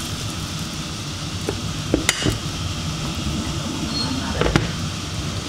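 A few sharp clinks and knocks of cookware being handled on a glass-top induction hob, over a steady background hiss.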